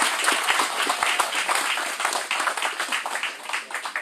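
Crowd applauding, many hands clapping at once, thinning out near the end.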